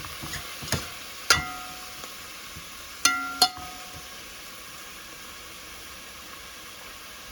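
Spinach frying in a pot with a steady sizzle, and about four sharp metallic clinks against the pot in the first few seconds, some of them ringing briefly.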